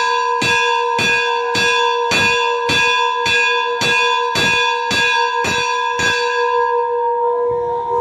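Hanging temple bell (ghanta) rung repeatedly, about two strikes a second, each strike ringing on in a clear tone. The striking stops about six seconds in and the bell rings on, fading.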